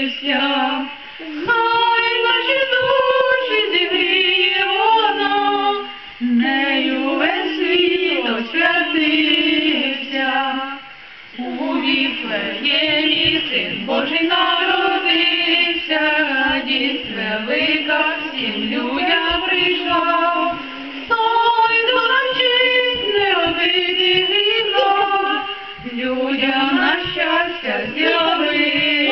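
A woman and two boys singing a Ukrainian Christmas carol (koliadka) together, unaccompanied, line by line with short pauses between phrases.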